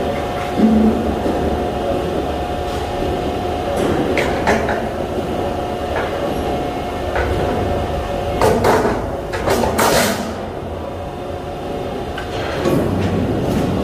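Steady hum of heavy shop machinery with a held tone, broken by metal scrapes and clanks from a long steel sheet being handled at a large press brake, loudest about halfway through and again near the end.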